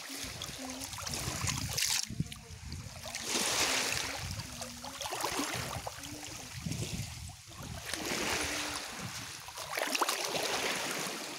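Small waves washing in and out over a pebble and shell-rubble shore, swelling and fading every couple of seconds.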